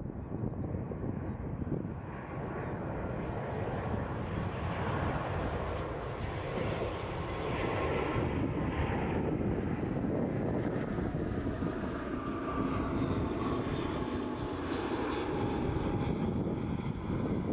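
Distant jet engine noise from an airliner at cruise altitude, heard from the ground: a steady low rumble that swells a little after the first couple of seconds.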